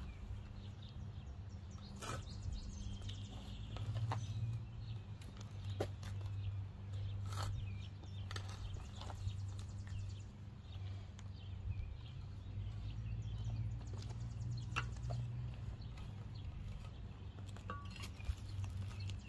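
Hand shovel digging into soil and grass, its blade giving short scraping and chopping knocks every second or two, over a steady low hum.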